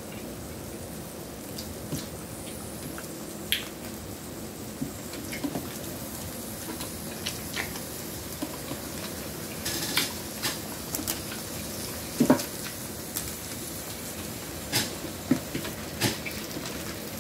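Eating sounds: small scattered clicks and wet squishes of shrimp being peeled by hand and chewed, then a few light taps of a fork against a plate near the end.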